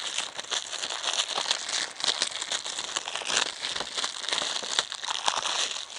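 Clear plastic shrink wrap being peeled off a Blu-ray case and crumpled in the hand: a continuous run of crinkling and crackling with many small sharp snaps.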